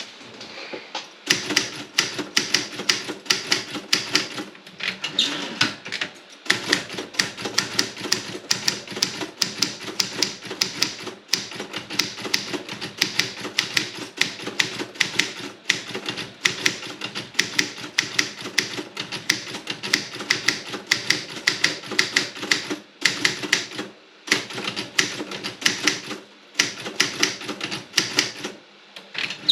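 Robotron 24 manual typewriter being typed on: quick runs of sharp key strikes, several a second, broken by a few short pauses.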